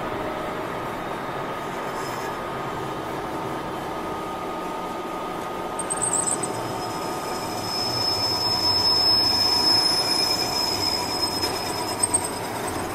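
Metal lathe turning a gap-roller ring: the spindle running while the cutting tool works the metal with a steady whine. About halfway through a high-pitched squeal from the cut comes in and grows louder for a few seconds.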